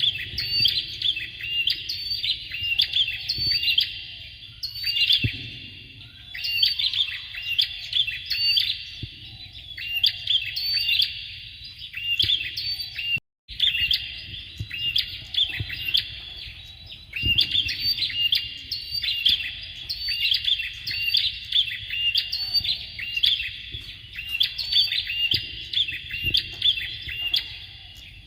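Bar-winged prinias (Prinia familiaris) calling: phrases of rapid, sharp, high chirps repeated over and over. The song breaks off for a moment about 13 seconds in, then resumes, over a faint low rumble.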